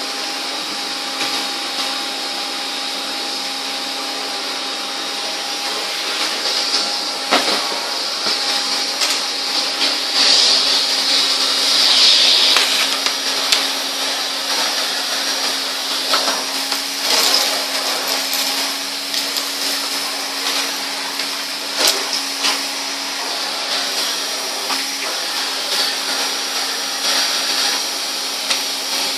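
1970s Hoover Constellation floating vacuum cleaner running with the hose: a steady motor hum under a high rush of air. Scattered clicks and knocks come as bits of paper and cardboard are drawn up the hose. The rushing swells for a few seconds about a third of the way in.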